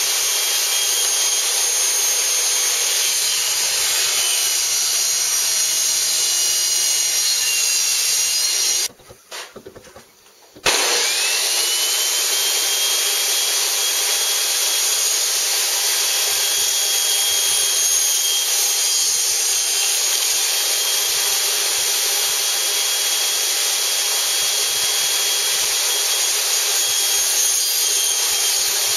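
Table saw running steadily as wood is cut with a crosscut sled. The saw drops away briefly about nine seconds in, then spins back up with a rising whine and runs on.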